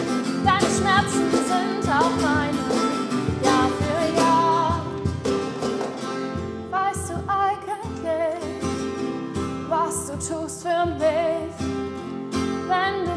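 A woman sings a German pop song, accompanied by strummed acoustic guitar and a cajón keeping a steady beat.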